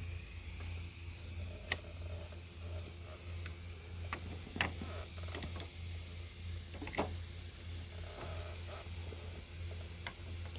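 A few light clicks and knocks of plastic roof trim pieces being handled and laid against each other, over a steady low hum.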